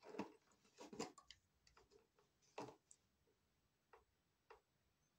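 Faint irregular clicks and snips of hand wire strippers stripping insulation from 14-gauge electrical wire: a quick cluster in the first second or so, then a few single clicks spaced out.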